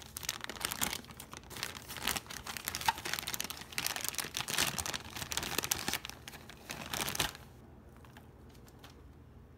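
Thin clear plastic toy bag crinkling and crackling as hands open it and work the toy out, stopping sharply about seven seconds in.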